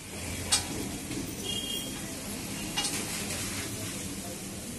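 A small wooden spoon stirring and scraping wet chaat (curd, chutneys, potato) in a paper bowl, with two light clicks, over a steady hiss.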